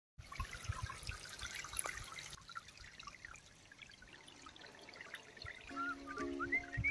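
Water trickling and splashing, busiest in the first two seconds, then quieter after an abrupt cut. Music with held tones and a warbling melody comes in near the end.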